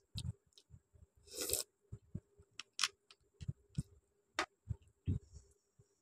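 Close-miked eating by hand: fingers working through chicken curry and rice and pulling meat off the bone, with wet lip smacks and chewing as a handful goes into the mouth. Irregular short clicks and squelches, one longer wet smack about a second and a half in.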